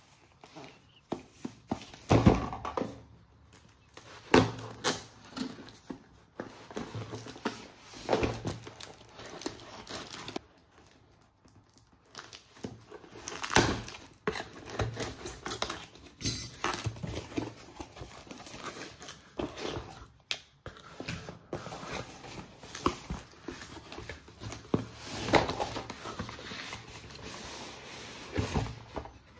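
Toy packaging being handled and opened: plastic and paper crinkling and tearing, with irregular taps and knocks.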